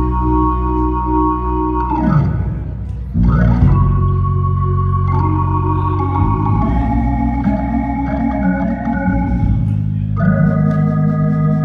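Organ music, Hammond-style: held chords, with a swoop down in pitch about two seconds in that rises back a second later, then a few chord changes.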